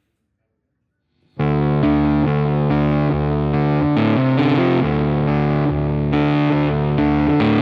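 Near silence, then about a second and a half in, background music starts abruptly: a distorted electric guitar playing chords with a steady rhythm.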